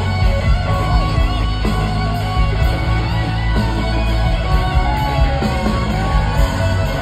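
Rock band playing live through a concert PA: electric guitar lead with notes that bend in pitch, over drums, bass and keyboards, loud and steady.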